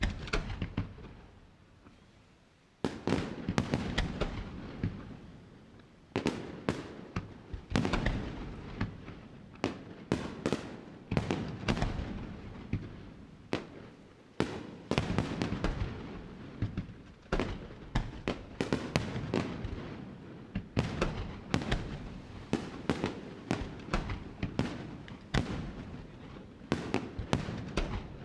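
Fireworks display: a rapid, nearly continuous run of sharp bangs and crackles with rumbling echoes. It opens with a single bang and quieter decay, then builds into the dense barrage about three seconds in.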